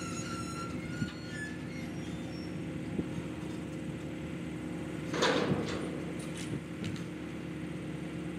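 Link-Belt 210 X2 excavator's diesel engine running steadily, with a couple of light knocks and a short, loud scraping noise about five seconds in.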